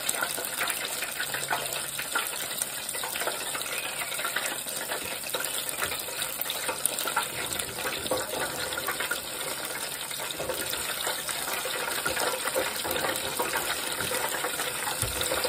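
Crab rangoon deep-frying in hot oil in an electric deep fryer: a steady hiss of bubbling oil, dense with small crackles. The rangoon are browning and nearly done.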